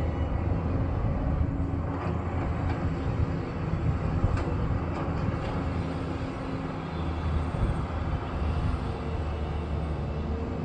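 Diesel engine of heavy earthmoving machinery running steadily with a low drone, with a few faint clanks over it.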